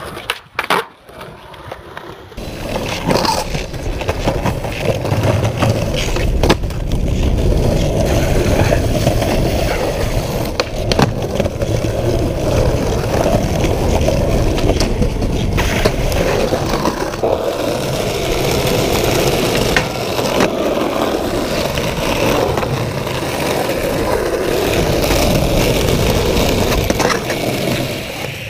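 Skateboard wheels rolling on concrete with a steady gritty rumble, broken by several sharp clacks of the board popping and landing.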